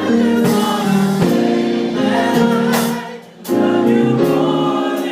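Gospel choir singing a slow worship song in held chords with instrumental accompaniment. There is a brief break about three and a half seconds in.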